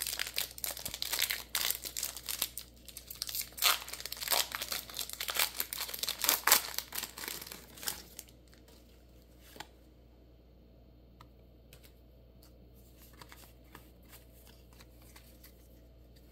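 Foil Pokémon booster pack wrapper being torn open and crinkled, with dense sharp crackles for about eight seconds. Then only faint clicks and slides of the trading cards being handled.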